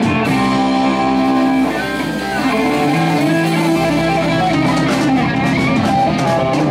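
A live rock band playing, led by guitar with held notes over a full backing.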